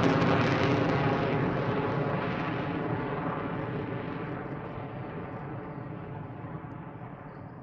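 F-16 fighter jet's engine, probably in afterburner, rushing as the jet climbs away. It fades steadily, and the high end dies away first, leaving a dull rumble.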